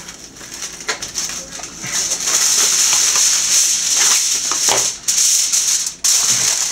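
Aluminum foil crinkling loudly as a sheet is pulled off the roll and handled, starting about two seconds in, with two brief breaks near the end.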